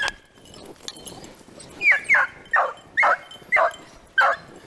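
Beagle barking: a quick run of about six short barks, each dropping sharply in pitch, starting about two seconds in.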